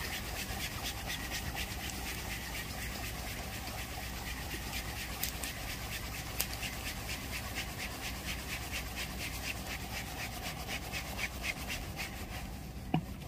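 Fishing reel being cranked to bring a bottom rig in from the sea, a fast, even run of ticks that thins out near the end, over a low steady rumble.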